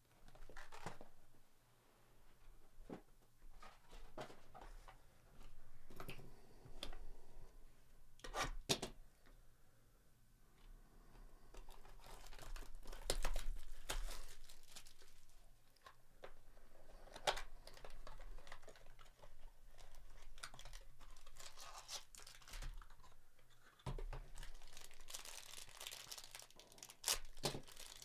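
A cardboard box of baseball cards being torn open by hand, in scattered short rips and rustles, then the cellophane wrapper on the card stack crinkling near the end.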